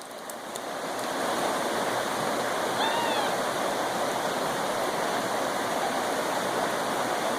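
Creek water rushing and splashing steadily, swelling over the first second and then holding even. A brief high arched call sounds once about three seconds in.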